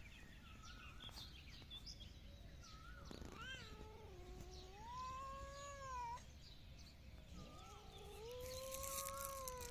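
A cat meowing: a few short faint mews, then two long, drawn-out wavering meows, the first about three seconds in and the second about seven seconds in.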